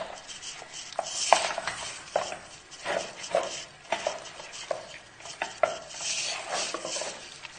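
Hands kneading and turning raw chicken pieces in a plastic bowl, working in a wet spice and herb marinade, with irregular soft knocks and rustles.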